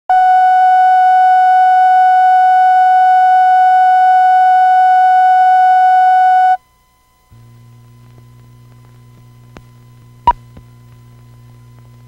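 Steady line-up test tone with overtones, played over colour bars, cutting off suddenly about six and a half seconds in. After a brief silence comes a low steady hum, with a sharp pop about ten seconds in.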